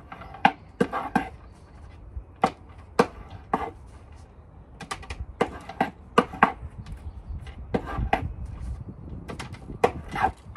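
Shave hook scraping a thin lead welding rod against a wooden bench, cleaning the oxidisation off before welding: a string of irregular sharp scrapes and taps, some in quick runs of two or three.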